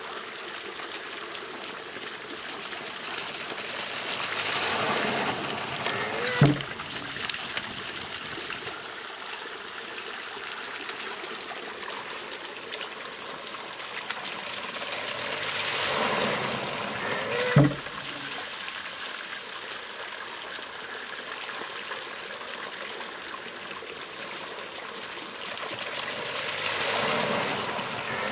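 Water-powered monjolo hammer working in its cycle: water rushes and spills from its trough, then the wooden hammer drops with a loud knock, twice about 11 seconds apart, with the water swelling again near the end. A steady stream trickles underneath.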